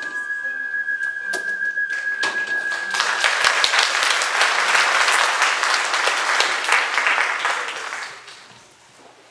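Audience applauding, swelling to a peak and then dying away near the end. At the start the music ends on a long held high note that lasts about three seconds.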